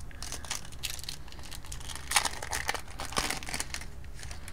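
Trading card pack wrapper crinkling and tearing as it is opened by hand: a run of sharp crackles, loudest about two seconds in and again near three seconds.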